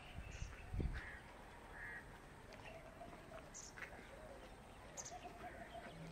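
Faint birds calling and chirping in short scattered notes, with a brief low thump about a second in.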